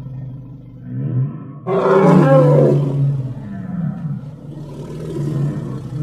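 Designed Tyrannosaurus rex roar sound effect. A low growl fades out, then a loud roar starts suddenly a little under two seconds in and lasts about a second. It trails off into lower, weaker growls.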